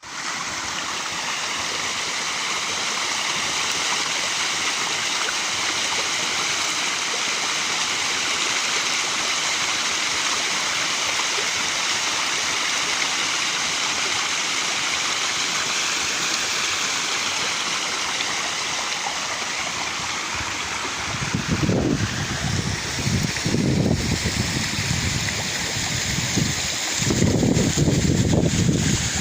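Waterfall rushing in a steady, even roar of falling water. Several low rumbling bursts come in during the last several seconds.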